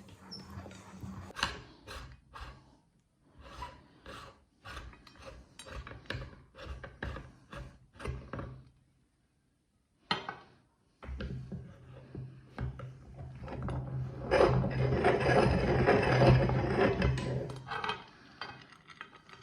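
Meat grinder grinding bars of soap: scraping, grating strokes at first, then a steady low hum with a louder, continuous grinding from about halfway, loudest near the end.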